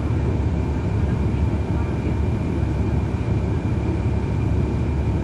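The Cummins ISL9 diesel engine of a 2011 NABI 40-SFW transit bus running steadily, heard on board as a deep rumble with a thin, steady high whine above it.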